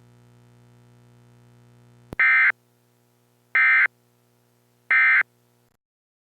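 Emergency Alert System end-of-message data bursts: three short buzzy digital bursts about 1.3 s apart, marking the end of the alert. A faint low hum runs beneath and cuts off just after the last burst, with a click just before the first.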